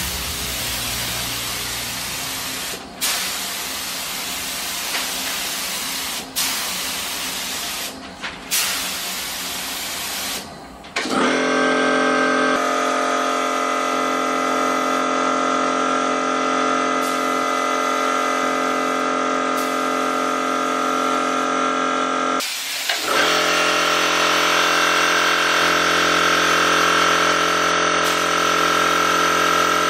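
Air spray gun hissing in bursts as the trigger is pulled and released, spraying primer. About eleven seconds in, a 50-litre air compressor starts and runs with a steady humming drone. The hum breaks off briefly about twenty-two seconds in, then resumes.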